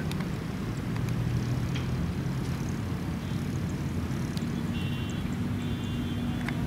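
Steady low outdoor rumble, with a few faint high-pitched chirps about three seconds in and again around five to six seconds in.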